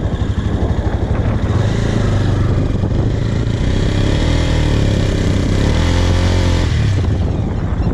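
Motorcycle engine revved hard while the bike is stuck in mud, its rear tyre spinning without grip. The revs rise and fall for several seconds, then drop back near the end.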